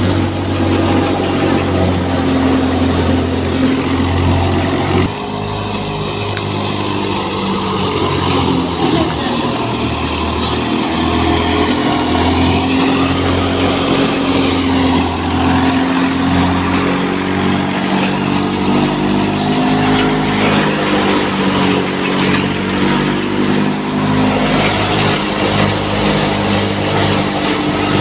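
Wheat thresher machine running steadily at full work, a loud, even mechanical drone from its engine and threshing drum, with a short drop in level about five seconds in.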